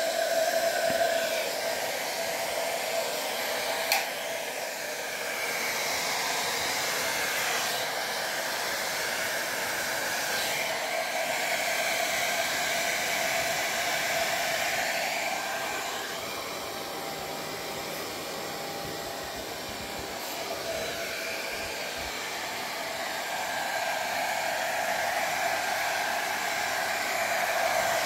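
Handheld hair dryer blowing continuously, a steady tone under the rush of air. It drops in level for a few seconds past the middle and comes back up near the end, with a brief click about four seconds in.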